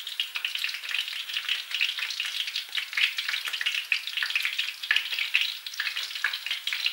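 Eggplants frying in hot oil in a pan: a steady sizzle with many small, irregular crackles and pops.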